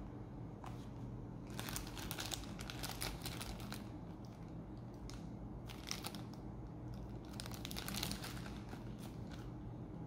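Clear plastic packaging bag crinkling in irregular bursts as it is handled and turned over, with a steady low hum underneath.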